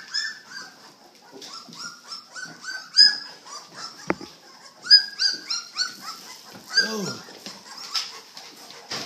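Presa Canario whining in a long run of short, high-pitched yelps, several a second, with a single sharp click about four seconds in.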